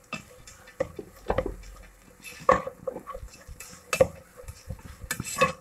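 Spatula stirring rice and vegetables in a non-stick pan, scraping and knocking against the pan at irregular moments.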